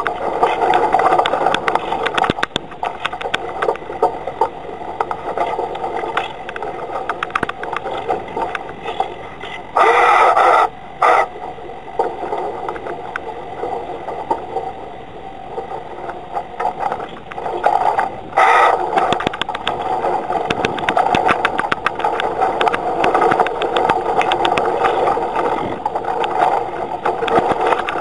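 Noise of a Hurricane 1000 radio-controlled yacht under way, picked up by its own deck-mounted camera: a steady rush of water and wind with many small knocks and rattles. Two loud bursts come about ten and eighteen seconds in.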